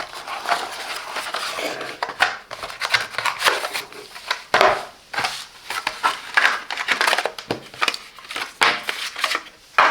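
A product box and its packaging being opened and handled by hand: irregular rustling and crinkling.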